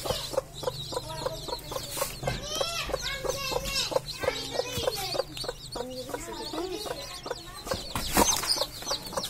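Mother hen clucking repeatedly while her chicks peep, with short high chirps mixed in among the lower clucks throughout.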